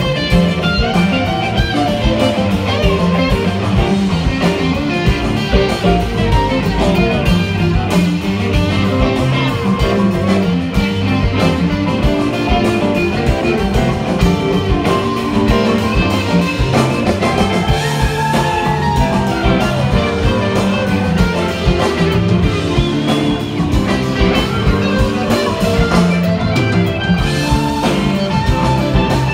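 Live rock band playing an instrumental jam: electric guitars over electric bass and a drum kit, heard from the audience.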